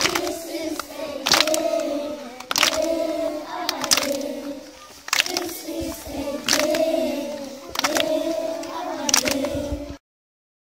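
A group of young children singing a song together in unison, with a sharp clap on the beat about every second and a half. The singing cuts off abruptly near the end.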